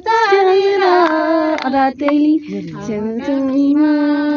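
A woman's voice singing a slow melody, holding long notes and gliding between them.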